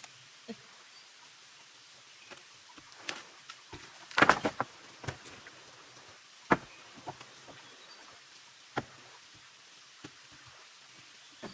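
Irregular sharp knocks and clicks, with a loud cluster about four seconds in and single knocks a couple of seconds apart after it, over a faint steady hiss of light rain.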